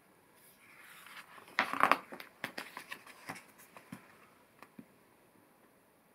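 A page of a paper picture book being turned by hand: a swish of paper that peaks about a second and a half in, followed by a scatter of light paper crackles and ticks.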